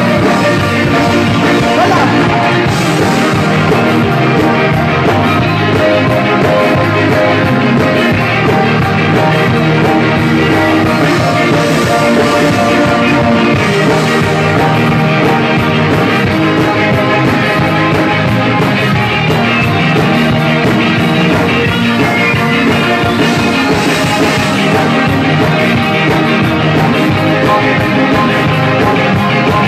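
Live rock band playing loud, with electric guitar and drums.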